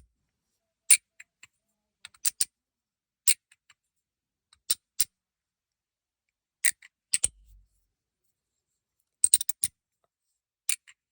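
Stainless steel three-layer magnetic fidget slider being worked by hand, giving sharp, heavy clacks, single or in quick pairs, at irregular intervals with silence between. The steel balls inside are fitted, and the sound is heavy clacking.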